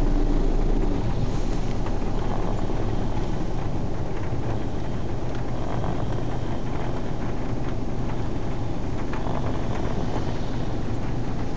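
A person snoring, heard as a loud, steady, low drone.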